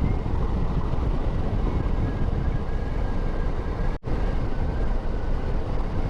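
KTM adventure motorcycle under way: the engine runs steadily at cruising speed under a low rumble of wind on the microphone. The sound cuts out for an instant about four seconds in.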